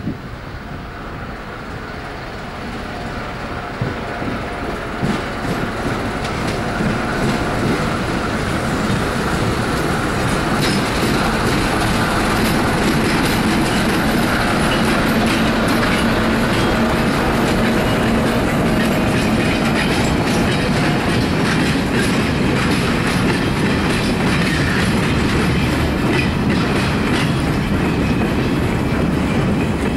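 A diesel freight locomotive approaches, growing louder over the first several seconds, and passes close by with its engine running under power. It is followed by a train of open freight wagons whose wheels clatter steadily over the rail joints.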